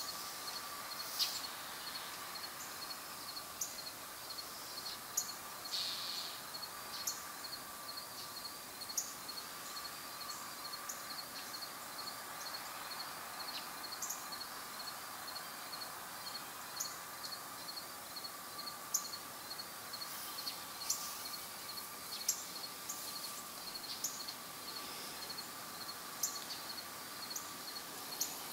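Outdoor ambience: short, high chirps from small birds every second or two, over a steady, fast, high-pitched pulsing trill and a background hiss.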